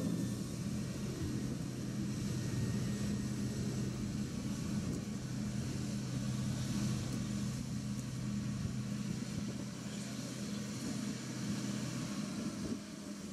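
Engine of heavy harbour-works machinery running steadily at constant speed, a low even hum that cuts off near the end.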